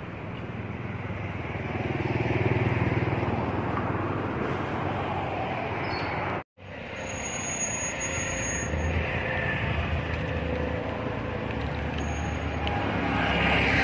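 Steady road traffic noise from passing vehicles. It cuts out for a moment about six and a half seconds in, then carries on.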